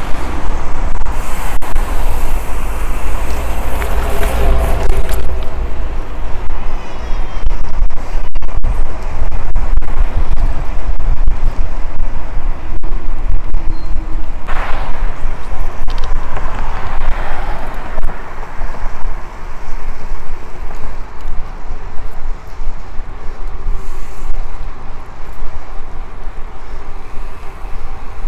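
Mountain bike riding a trail, heard through an action camera's microphone: a steady loud rumble of wind buffeting and tyres rolling over the ground.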